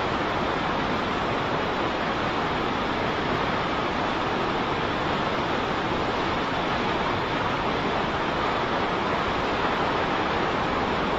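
A waterfall's falling water making a steady, unbroken rushing noise with no change in level.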